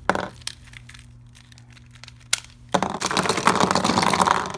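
Plastic Rubik's cube being taken apart by hand: a few sharp clicks, then about two seconds of dense crackling and rattling of plastic pieces that stops abruptly.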